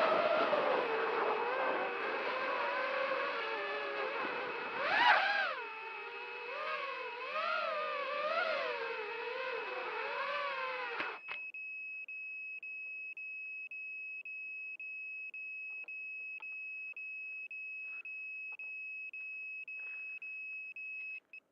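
Walkera F210 racing quadcopter's motors whining, the pitch rising and falling with the throttle, with a sharp rev about five seconds in. About halfway through, the motor sound cuts off suddenly. A steady high beep that was already under the motors carries on alone, breaking off briefly about twice a second.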